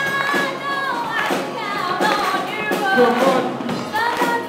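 Live amateur band playing: drum kit keeping a steady beat of about two hits a second, with electric guitars and bass, and a girl singing a melody into a microphone.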